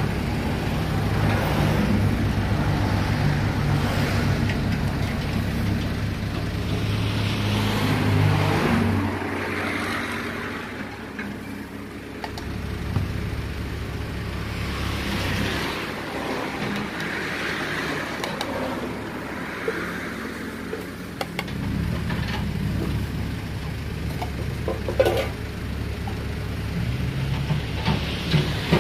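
Low engine rumble of nearby motor traffic, heavier at the start and again after about twenty seconds, with a few light clicks of plastic cups and utensils being handled.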